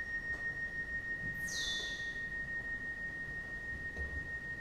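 Electronic tones from a psychoacoustic sound installation: a steady, high, pure sine-like tone, with a fast falling sweep from very high pitch about a second and a half in.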